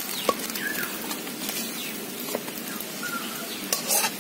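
Metal spatula scraping and tapping against an aluminium karahi as the fish mash is stirred: a few sharp clicks over a steady hiss. A bird chirps briefly a couple of times.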